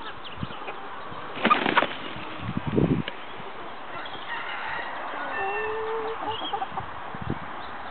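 Flock of hens clucking and giving short calls, with two brief louder bursts of noise about one and a half and three seconds in.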